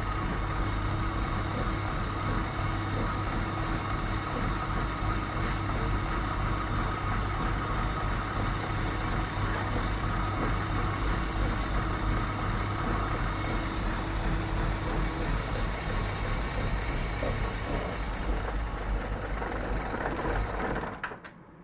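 BMW E34 running at idle: a steady mechanical hum with low tones and a faint higher whine. The car idles normally but will not pull under throttle, which the owner puts down to a clogged fuel pump. The sound cuts off abruptly near the end.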